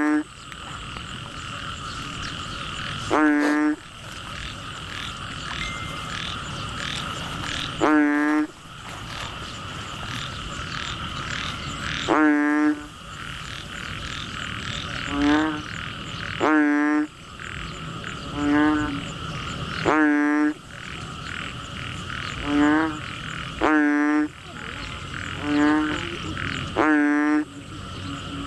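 Frogs croaking: loud, short calls repeating every two to four seconds, with shorter answering calls in between from about the middle on, over a steady high drone of insects.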